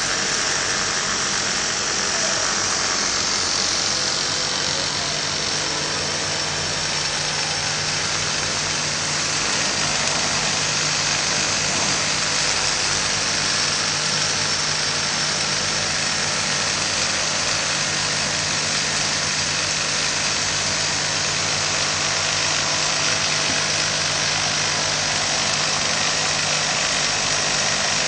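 Automatic carpet overlock machine running as its sewing head stitches along a carpet's edge: a steady mechanical whirr with a low hum underneath.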